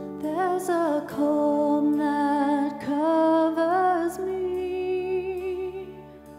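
Live worship band playing a slow song: a woman sings a held, gently wavering melody over sustained keyboard chords and guitar.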